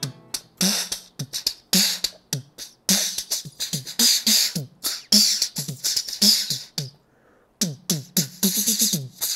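A man beatboxing with his hands cupped over his mouth: a fast rhythm of deep kick-drum thumps that drop in pitch, alternating with hissing snare-like hits. It breaks off for about half a second around seven seconds in, then picks up again.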